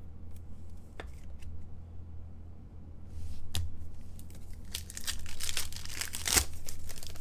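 Trading card pack wrapper being torn open by hand, with a dense crinkling that grows louder over the last couple of seconds. A few sharp clicks come earlier as cards and plastic sleeves are handled.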